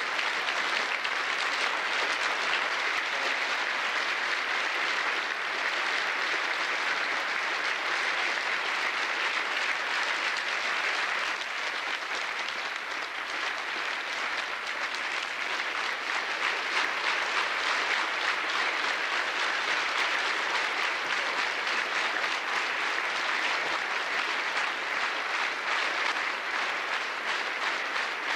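Sustained applause from an audience, many hands clapping in a dense, steady patter that eases slightly about halfway through and then picks up again.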